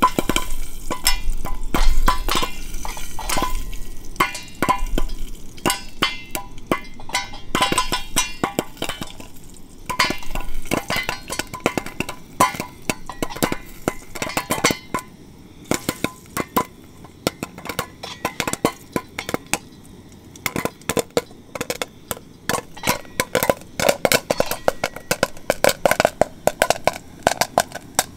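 Metal utensil clinking and tapping against a metal camp cooking pot: irregular sharp clinks with brief ringing, coming thicker and faster in the last third.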